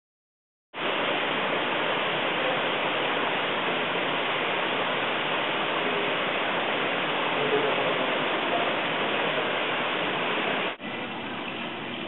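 Steady rushing noise like running water, starting suddenly about a second in and carrying on evenly; near the end it breaks off for an instant and goes on a little quieter.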